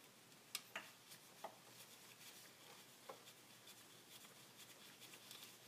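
Mostly quiet, with a few short, sharp clicks and light handling noises as a gloved hand works parts in a car's engine bay, lifting a part aside and snapping a cable out of its holder.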